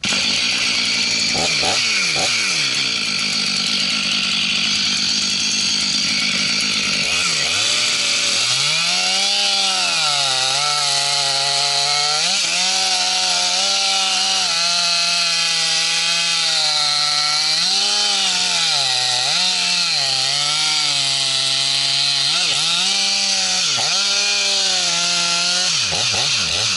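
Chainsaw cutting apricot wood. It runs steadily at first, then from about eight seconds in its pitch repeatedly drops and climbs back as the chain loads up in the cut and frees again.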